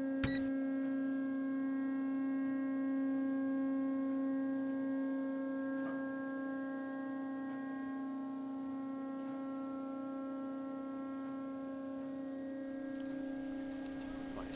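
A steady hum on one pitch with overtones, unchanging throughout, with a single sharp click about a quarter of a second in.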